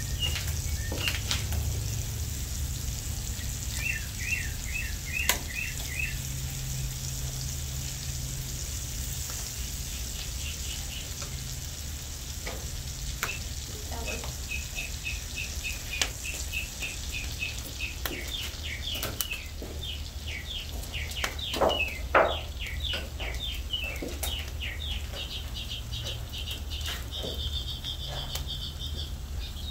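Chicken pieces frying in melted butter in an iron spider skillet over hearth coals, with a steady sizzle. A few sharp clicks come through, the loudest pair about 22 seconds in. Runs of quick repeated bird chirps are heard in the background, most of them in the second half.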